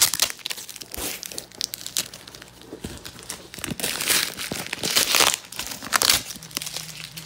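A cardboard shipping box and its plastic packaging being handled and opened: an irregular run of crinkling, rustling and tearing noises, with the strongest bursts about five and six seconds in.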